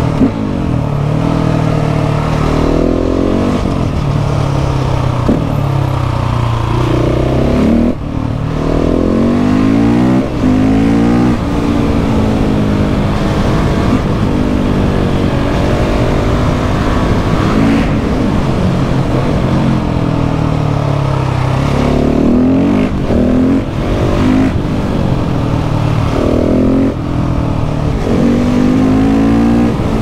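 KTM 690 SMC R's single-cylinder engine revving hard under acceleration, its pitch climbing and falling again and again, with brief sharp drops as the throttle closes or a gear is shifted.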